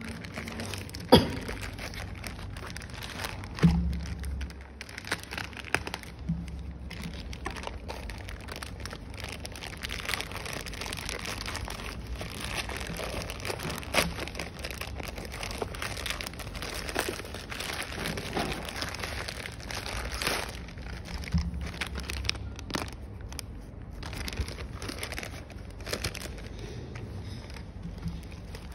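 Plastic courier mailer bag crinkling and rustling as it is handled and torn open, with scattered sharp knocks and clicks, the loudest about a second in.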